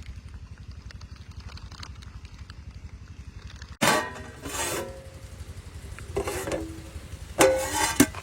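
A small engine running steadily with an even low pulsing, and two loud brief outbursts of sound over it, about four seconds in and near the end.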